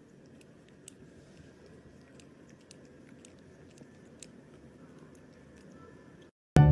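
Quiet room noise with a few faint, scattered clicks, breaking off into silence near the end.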